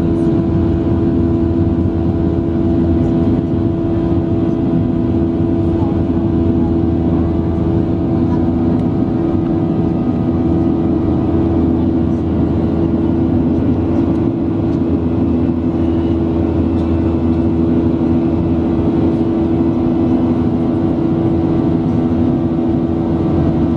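Boeing 737 jet engines and rushing air droning steadily in the cabin during the climb-out after takeoff: a broad low roar with a steady hum of several tones on top.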